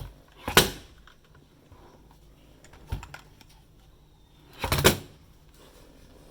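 A budget mechanical keyboard with linear red switches being handled and pressed. Two louder clunks come about half a second in and again near five seconds in, with a smaller knock about three seconds in and a few faint key clicks between them.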